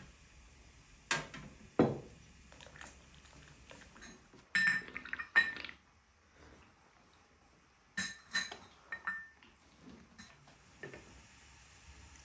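Glass tea cups clinking and knocking as they are picked up and set down on saucers and the table. Scattered sharp clinks, some with a short ring, with a busier cluster about five seconds in and another about eight seconds in.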